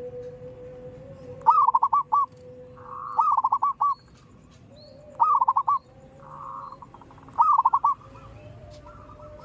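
Zebra dove calling: four rapid trilled coos, each a quick run of short notes, about two seconds apart, over a faint steady hum.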